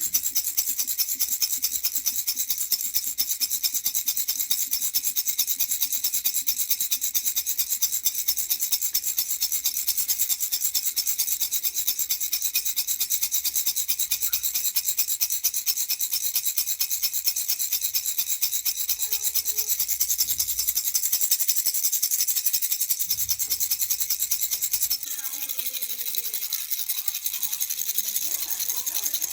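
Baby rattle (jhunjhuna) shaken rapidly and continuously, a dense, high, hissing rattle of small beads; it drops a little in level about 25 seconds in.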